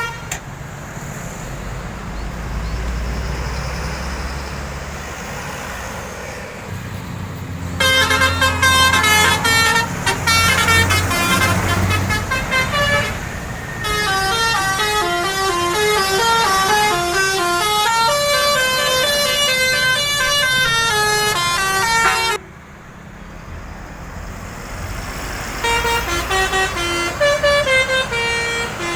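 Indonesian bus 'telolet basuri' multi-tone musical horn playing a flute-like tune of stepping notes as a bus passes, over the deep rumble of the bus engine. The engine is heard alone for the first several seconds. The horn tune starts about eight seconds in, pauses briefly, runs on until past the twenty-second mark, and starts again near the end.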